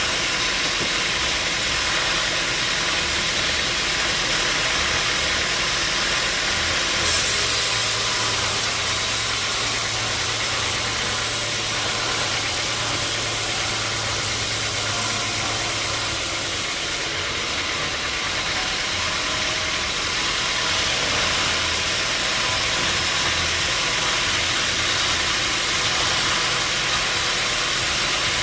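Sawmill machinery running steadily: a motor with a constant hissing noise over it, the tone of the hiss shifting suddenly about 7 seconds and again about 17 seconds in.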